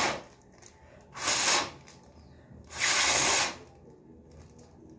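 Three puffs of breath blown into a clear disposable plastic glove to open it up: a short one at the start, then two longer ones, the last the longest.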